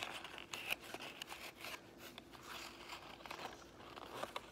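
A sheet of white printer paper rustling and crinkling as it is folded and creased by hand, with scattered small crackles.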